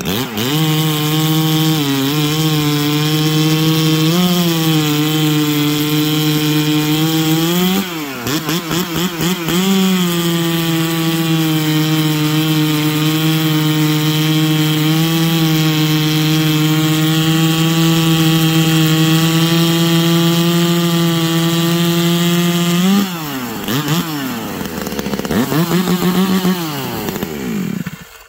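Rebuilt Stihl 381 two-stroke chainsaw at full throttle cutting through a log. Its pitch dips briefly a few times under load, and once about eight seconds in it eases off and picks back up. Near the end it comes out of the cut, falls toward idle with a couple of short revs, then stops.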